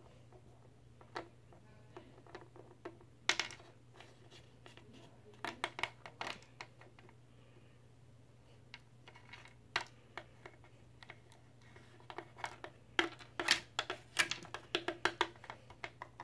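Small plastic toy figures and accessories handled, set down and tapped on a wooden tabletop: irregular clicks and taps in small clusters, busiest near the end, over a faint low hum.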